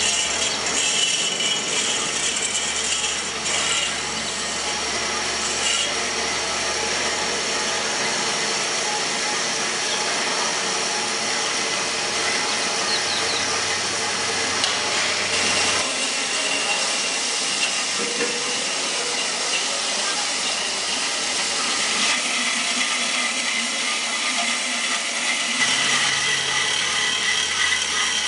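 Horizontal metal-cutting band saw running, its blade cutting steadily through a steel pipe as the hydraulic feed lowers the saw head. The sound is a continuous metallic rasp over the motor's hum.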